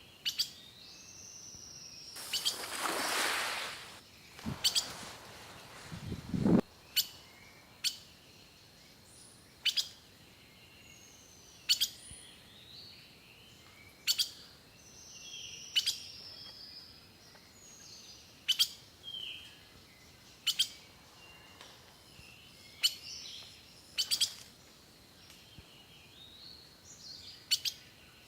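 Small birds calling, with short falling whistles and sharp ticks recurring about every two seconds. A brief rush of noise comes a couple of seconds in.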